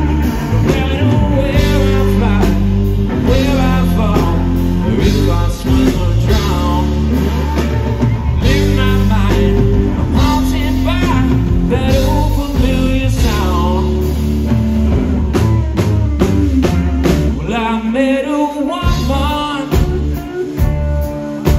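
Live blues-rock band playing: guitar lines with bending notes over drum kit and bass.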